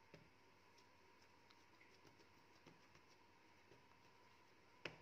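Faint soft pats and taps of hands pressing and shaping scone dough on a countertop, with one sharper tap near the end, over a faint steady hum.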